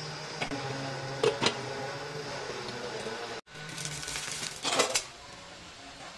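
Cookware sounds at a frying pan: two sharp clicks about a second in, then a short burst of clattering and scraping around the fourth and fifth seconds, over a steady low hum.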